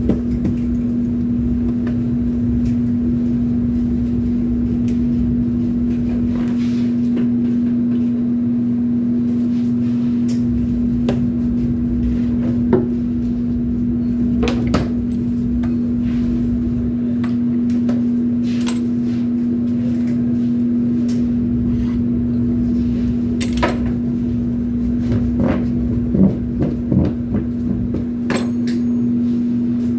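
A steady, single-pitched low machine hum from running kitchen equipment, with scattered knocks and clatter of utensils, plastic tubs and wooden pizza peels on the prep counter. The clatter is busiest near the end.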